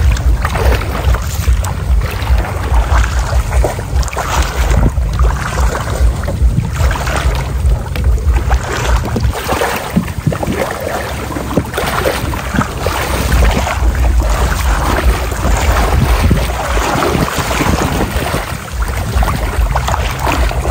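Legs wading through knee-deep floodwater, splashing and sloshing irregularly, over a heavy rumble of wind on the microphone.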